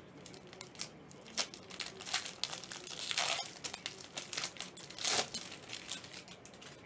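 Plastic wrapping on sealed trading-card packaging being crinkled and torn open: a run of sharp crackles and rustles, with longer tearing rasps about three seconds in and again about five seconds in.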